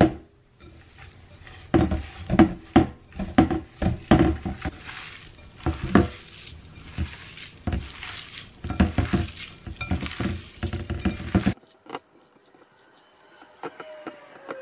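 Hands kneading a ground-beef meatball mixture in a glass bowl that sits in a stainless steel sink, with repeated knocks and clinks of the bowl against the steel. The knocking stops suddenly a few seconds before the end, leaving only faint clicks.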